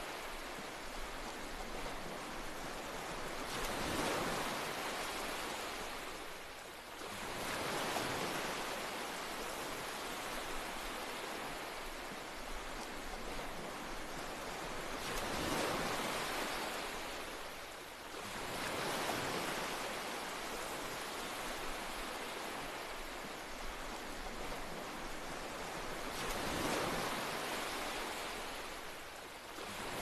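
Steady rushing nature ambience that rises and falls in slow swells every few seconds.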